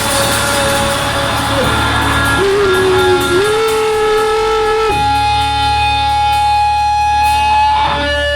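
Electric guitar holding long sustained single notes, bending from one pitch to another every second or two, over a steady low hum.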